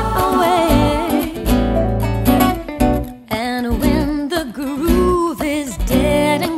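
Acoustic guitar strummed under lead and backing vocals, with the sung line wavering and gliding in pitch.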